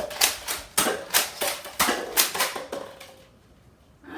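Toy Nerf blaster being fired rapidly, a quick run of sharp plastic clacks about three a second, with darts striking targets. It stops about three seconds in.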